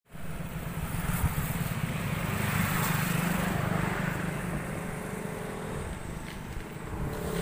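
Road traffic on a bridge: a motor vehicle's engine running close by, a little louder in the first few seconds and then easing.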